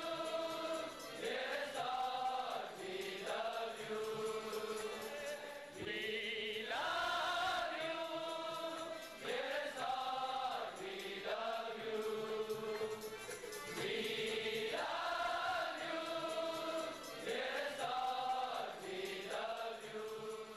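A group of voices singing a devotional song in held, drawn-out phrases of a few seconds each.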